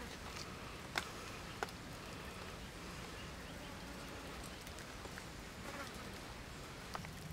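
Quiet, steady outdoor background noise with two faint short clicks, about a second and a second and a half in.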